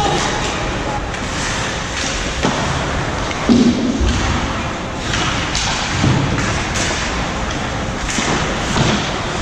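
Ice hockey play in a rink: a steady wash of game noise with several thuds, the loudest about three and a half seconds in.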